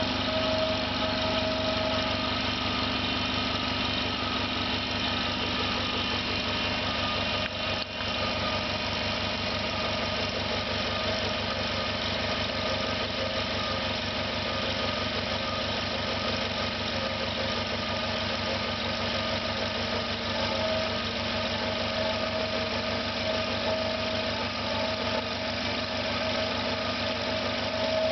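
Electric air compressor running steadily after restarting, motor and cooling fan humming together. The owner believes the motor is damaged from overheating, with a smell of burnt plastic.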